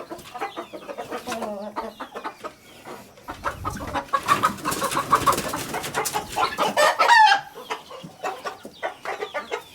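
Chickens clucking and squawking, fussing in their coop, with a louder, noisier flurry in the middle.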